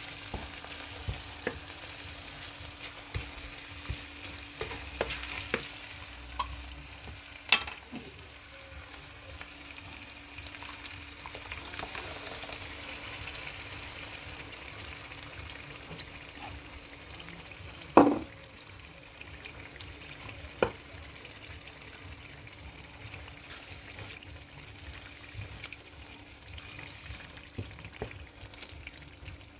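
Food sizzling in a frying pan while it is stirred, with scattered clicks and a few sharp knocks of the utensil against the pan, the loudest about 18 seconds in.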